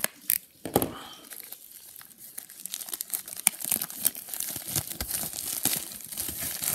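Plastic mailer packaging being torn open and crinkled by hand, with a few sharp snaps in the first second, then dense, continuous crackling.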